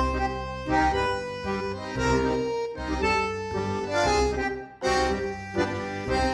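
Background music: an instrumental tune of held notes over a pulsing bass.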